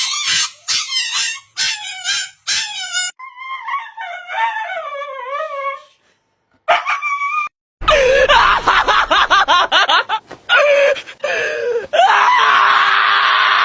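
A dog vocalizing: a quick run of short high yips, then longer wavering, howl-like calls, and in the second half a loud, harsh, noisy stretch.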